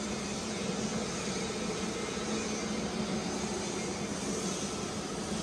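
Mecca Turn 460x1000 centre lathe running with its lead screw engaged for carriage feed: a steady gearbox hum with a constant low tone.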